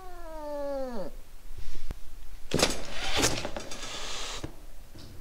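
A cat meows once, the call sliding down in pitch. About two and a half seconds in, a tabby cat hisses for about two seconds: a defensive warning.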